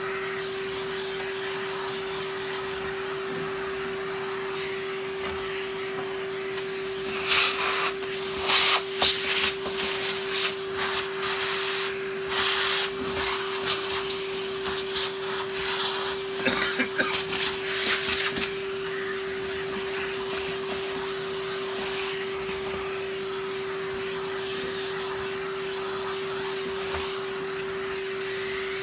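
Vacuum cleaner running with a steady hum while the nozzle is used to suck the crud off parts. From about seven to eighteen seconds in come loud, irregular hissing bursts as the nozzle is worked over the dirt, before it settles back to the steady hum.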